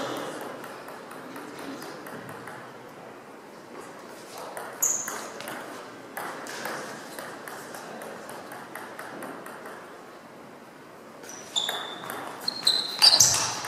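Table tennis rally: the celluloid ball clicks off bats and table in a quick back-and-forth. Shoes squeak on the sports hall floor once about five seconds in and several times near the end, where the hits are loudest.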